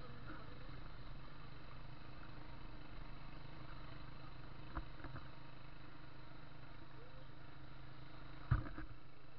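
Habal-habal motorcycle taxi running steadily under way, with wind rushing past. Short knocks near the middle and a louder thump about eight and a half seconds in.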